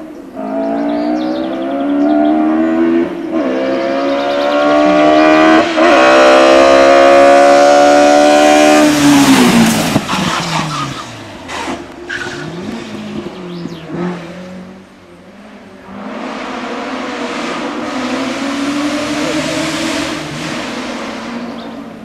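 BMW 320i E21 hillclimb car's M12/7 two-litre four-cylinder racing engine at high revs. Its pitch climbs, with two brief breaks for upshifts, and it is loudest just before it passes, then the pitch drops and the sound fades away. A few seconds later a racing engine is heard again, fainter, its revs rising steadily.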